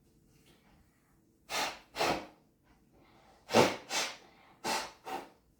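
A person blowing their nose hard into a handkerchief: six short, forceful blasts in three pairs, clearing out mucus and phlegm loosened by kunjal kriya, the yogic water-vomiting cleanse.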